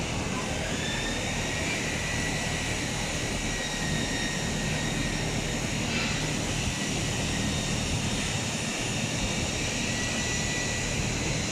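Steady hum of running machinery with a faint high whine, even in level throughout.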